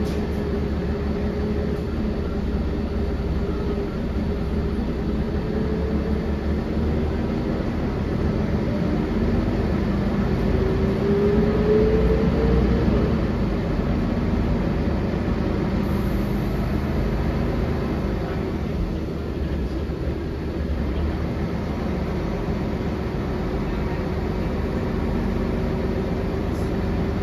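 Cabin sound of a 1999 Volvo B10L bus under way: the rear-mounted six-cylinder diesel drones steadily with road and body rumble. The engine note climbs in pitch and grows louder about ten to thirteen seconds in, then settles.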